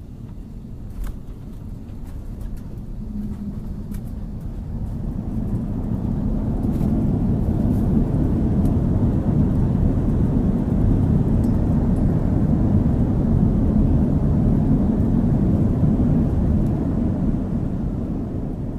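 Low, rumbling engine and airframe noise inside an Airbus A330 cabin, typical of landing rollout. It swells over several seconds to a loud steady level, as reverse thrust and braking take hold, then dies away near the end.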